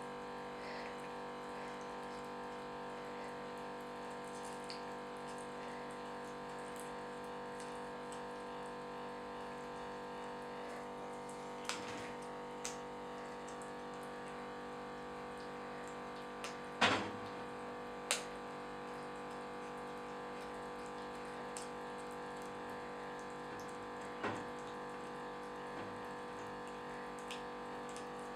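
Kittens chewing raw chicken heads: a handful of short, sharp crunches scattered through, the loudest about two-thirds of the way in. Under them runs a steady background hum made of several fixed tones.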